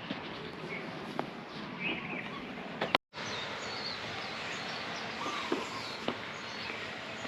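Birds chirping over a steady outdoor background hiss, with a brief dropout about three seconds in.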